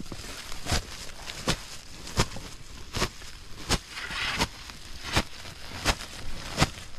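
A woven plastic sack rustling and crinkling as it is shaken open and its mouth folded back. A sharp knock sounds about every 0.7 s, nine times in an even rhythm.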